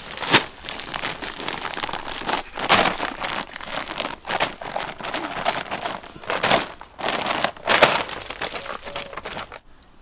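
A plastic shopping bag crinkling and rustling as it is tipped over and pulled off a pile of compost. The crackles come irregularly and stop near the end.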